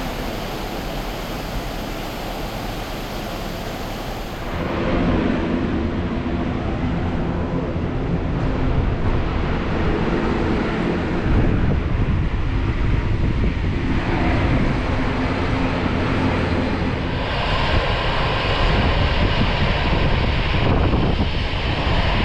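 Airbus A320 airliner noise: a steady roar with a low droning hum, changing in tone about 5 s in and again about 17 s in.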